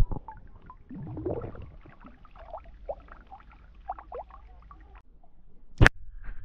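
Water glugging and dripping out of a small round glass flask held upside down, splashing back into the water as scattered gurgles and plops. A single sharp tap comes near the end.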